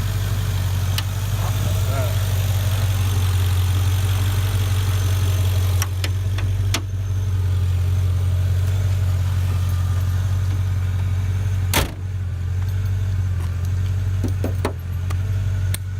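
Mercedes E55 AMG's supercharged 5.4-litre V8 idling steadily, running again after the failed crankshaft position sensor that caused its no-start was replaced. A sharp click cuts in about twelve seconds in.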